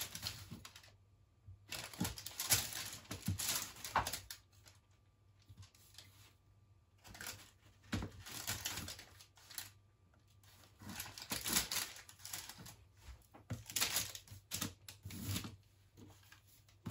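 Kitchen knife cutting through a set, chocolate-topped peanut slab and scraping over baking paper, in several bursts of cutting with short pauses between them.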